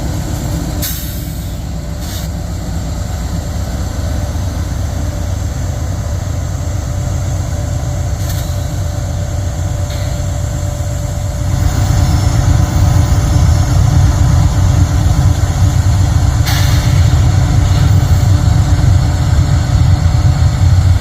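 Diesel-electric freight locomotives working hard under load in a pull test: a deep, steady engine rumble that steps up noticeably louder about halfway through, with a few brief clicks.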